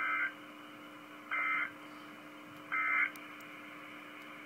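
EAS (NOAA Weather Radio SAME) end-of-message data code: three short, buzzy bursts of fast warbling between two high tones, about 1.4 s apart, the digital signal that closes the alert.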